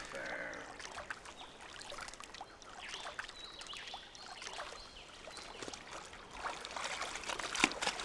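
Faint water trickling and lapping at a muddy pond edge, with scattered small splashes and clicks.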